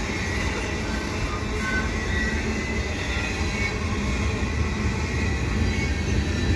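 Freight train cars (tank cars and autoracks) rolling past close by: a steady rumble of steel wheels on rails, with a few brief high wheel squeals.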